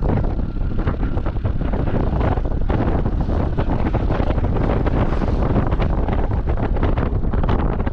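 Heavy wind buffeting the microphone: loud, continuous, with constant crackle.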